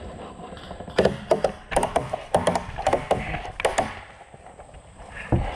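Airsoft fire: an irregular string of sharp snapping cracks for about three seconds, then a single crack near the end.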